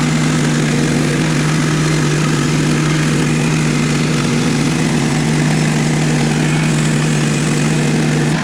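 Sawmill running steadily, a loud, even engine hum with a constant pitch.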